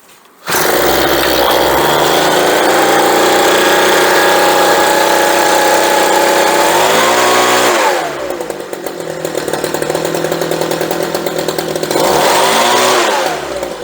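A Homelite handheld leaf blower's two-stroke engine, just fitted with a new carburetor and fuel lines, fires up about half a second in and runs at high speed. Around seven seconds in it drops back to idle, then revs up once more near the end before settling again. The new carburetor is working.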